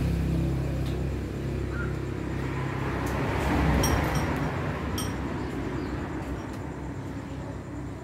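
A motor vehicle running with a steady low hum, then a swell of road noise that peaks about four seconds in and fades, as of a vehicle passing, with a few sharp clicks at the peak.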